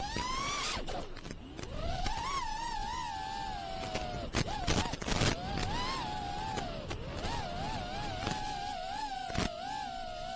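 FPV quadcopter's brushless motors (iFlight Xing2 2306 1750kv) and props whining, the pitch rising and falling with the throttle: it climbs sharply right at the start and sinks around four seconds in. A few short bursts of wind noise come in the middle.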